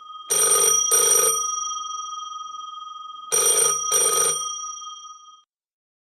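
Old telephone's bell ringing in a double-ring pattern: two pairs of short rings about three seconds apart, the bell tone lingering and dying away after each pair.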